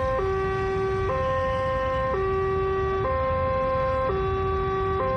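Two-tone warning siren alternating between a higher and a lower note, each held about a second, over a steady low rumble.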